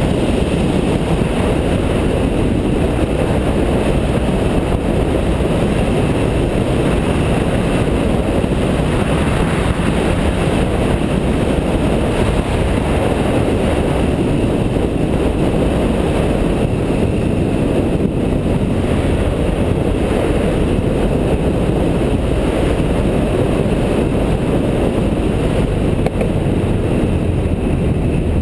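BMW F650GS motorcycle riding at a steady road speed: constant wind rush on the microphone with the engine running underneath.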